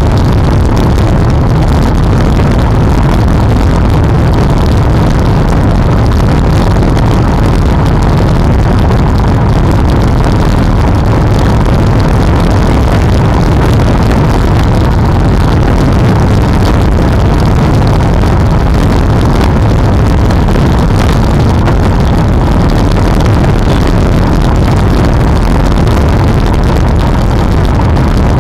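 Loud, steady low rumble of wind buffeting the microphone of a camera on a moving road bike, mixed with road noise.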